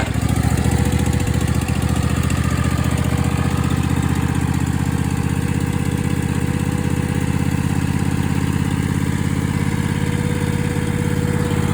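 Riding lawn mower engine catching right at the start and then running at a steady idle.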